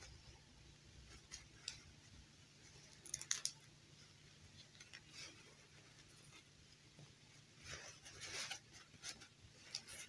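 Faint rustling of a doll's satin and tulle gown being handled and pulled off a plastic fashion doll, with a few soft clicks and taps, the sharpest cluster about three seconds in and a longer rustle near the end.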